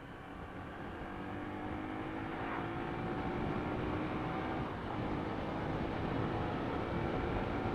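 Yamaha YBR 125 ED's single-cylinder four-stroke engine running while the bike is ridden at a steady pace, getting gradually louder over the first few seconds, over a steady rush of road and wind noise.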